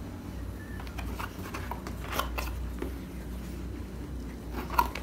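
Hands handling a cardboard camera box and its paper inserts: rustling and rubbing with scattered light clicks, and a sharper click near the end.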